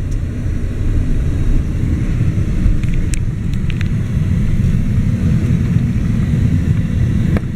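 Car driving, with a steady low road and engine rumble heard from inside the cabin, and a few faint clicks about three seconds in.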